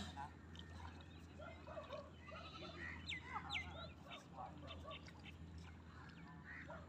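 Faint scattered animal calls, with two quick rising bird chirps about three seconds in, over a low steady hum.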